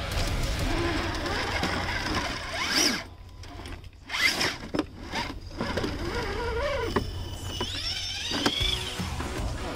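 Radio-controlled crawler truck's electric motor and gear drivetrain whining in short starts and stops, with clicks in the middle and a whine that rises and falls near the end.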